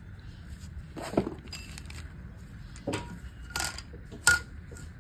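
A few short, scattered clinks and knocks of parts and packaging being handled in a workshop, about five in all, the sharpest near the end, over a faint steady background hum.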